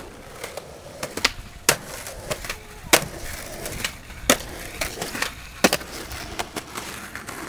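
Skateboard wheels rolling on concrete, broken by a string of sharp clacks as the board pops and lands, the loudest about three seconds in. Midway the deck slides along a metal stair handrail.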